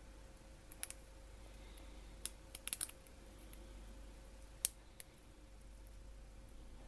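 Small rotary-tool (Dremel) accessories being handled on a bench, clicking and tapping as they are picked up and set down: two clicks about a second in, a quick cluster near three seconds, and one sharp click near five seconds. A faint steady hum runs underneath.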